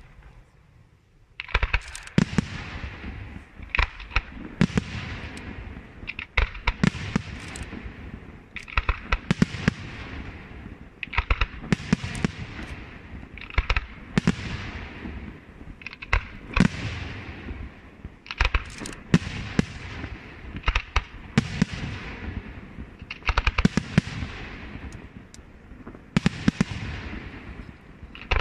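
Aerial firework shells bursting in rapid salvos: sharp bangs every second or so, each followed by a fading hiss of burning stars. The bangs start about a second and a half in, after a brief lull.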